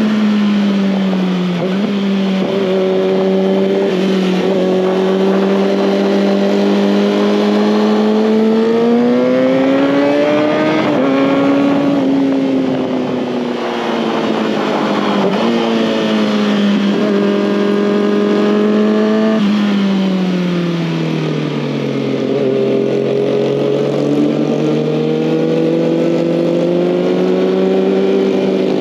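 2019 Kawasaki ZX-6R's inline-four engine running on the move. Its pitch holds steady, climbs about eight seconds in, eases back, then falls sharply about twenty seconds in and slowly climbs again as the throttle is opened and closed.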